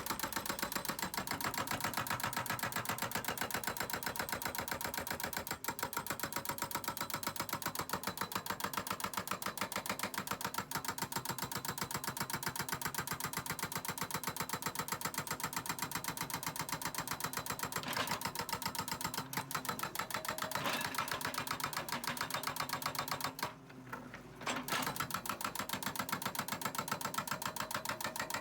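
A machine running with a rapid, even clatter, dipping briefly about 23 seconds in.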